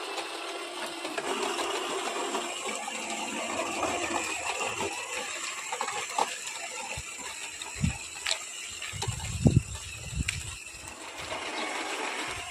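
Scraping and rustling of hands working on a craft piece, with scattered clicks and a few soft knocks about two-thirds of the way in.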